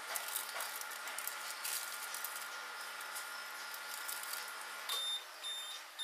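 Microwave oven running with a steady hum while pork rinds crackle and pop inside their bag. About five seconds in the hum cuts off and the microwave starts beeping in short high beeps, signalling the end of the cooking cycle.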